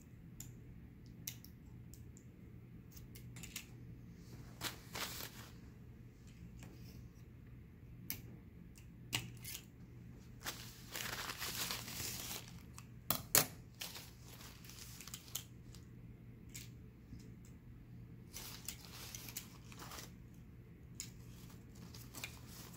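Brief crinkling rustles and scattered sharp clicks over a steady low hum. The longest rustle comes about halfway through, followed by the loudest click.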